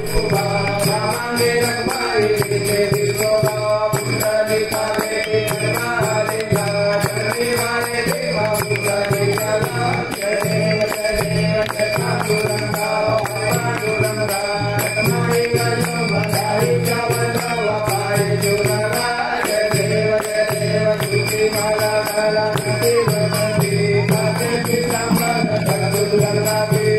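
Hindu aarti to the goddess Durga: a sung devotional chant with a steady melody, with bells ringing rhythmically throughout.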